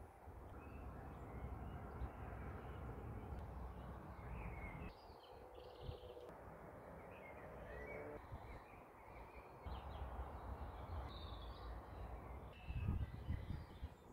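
Faint outdoor ambience: birds calling now and then over a low, uneven rumble.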